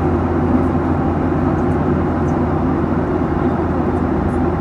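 Airliner cabin noise in cruise: the steady low drone of the engines and the airflow, heard from inside the cabin.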